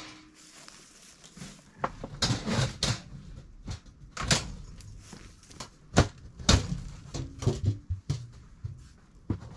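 Lid of a Moultrie All-in-One hog feeder being pressed and knocked down to seat it tightly on the feeder: a run of irregular knocks and thuds, the loudest about six seconds in, with scraping between them.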